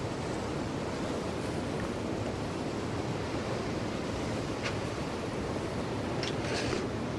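Steady wash of ocean surf, with a few faint soft ticks about two-thirds through and near the end.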